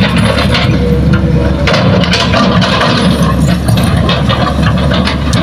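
Diesel engines of a Hitachi hydraulic excavator and an Isuzu light dump truck running steadily close by, a continuous low hum.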